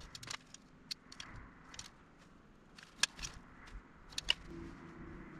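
Scattered sharp clicks and taps from handling tools and metal parts, the two loudest about three seconds and four and a half seconds in. A steady machine hum starts near the end.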